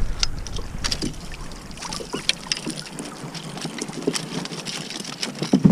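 Irregular clicks, taps and knocks of a landing net and fishing gear being handled on a plastic kayak as a netted trout is lifted aboard, over a light hiss of water and wind.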